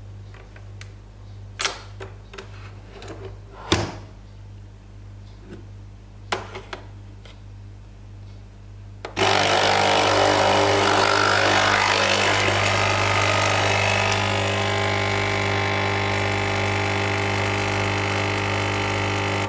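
A few clicks and knocks as a Nespresso capsule coffee machine is loaded and closed. About nine seconds in, its pump starts with a loud, steady buzz as it brews coffee into the cup, easing off slightly partway through.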